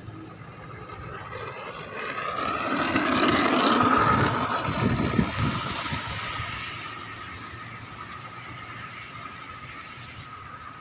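Radio-controlled scale CN-235 model airplane's twin motors and propellers whining as it rolls along the runway past close by. The sound swells to a peak about four seconds in, then fades as the model moves away.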